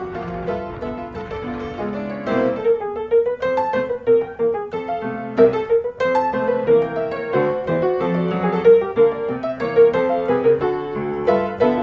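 Background music led by piano: a light melody of struck notes over chords at a steady pace.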